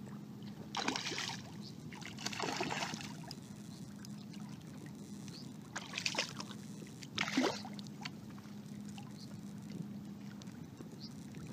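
A hooked speckled trout thrashing at the surface of shallow water, splashing in four short bursts: about a second in, around two and a half seconds, at six seconds and at seven and a half seconds. A steady low water noise runs underneath.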